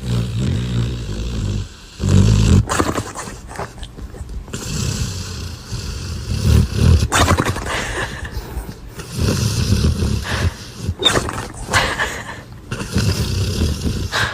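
Loud snoring: a string of long snores one after another, with short gaps between them.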